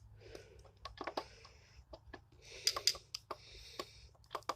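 Saxophone keys being pressed and released by hand: a run of faint, irregular clicks as the pads close and lift off the tone holes, checking how the pads seat.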